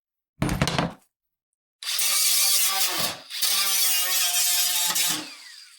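A short harsh burst, then a power tool working sheet metal for about three seconds, with a brief break in the middle. Its pitch falls near the end as the motor winds down.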